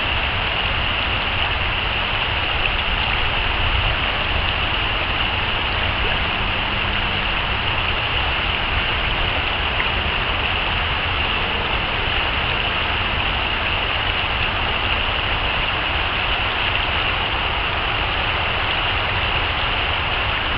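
Shallow stream rushing steadily over a stony riffle: an even hiss of water with a low rumble underneath.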